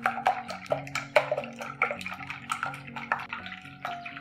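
Beaten eggs being whisked briskly in a glass bowl with a wire whisk: quick wet slapping and clicking strokes, about four or five a second, over soft background music.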